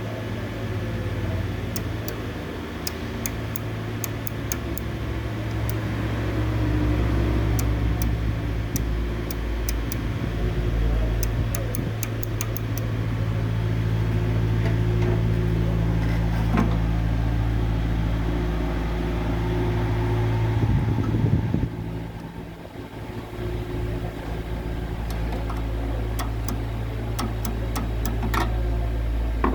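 Microwave oven running: a steady low mains-frequency hum with scattered light clicks and ticks. The hum dips briefly about two-thirds of the way through.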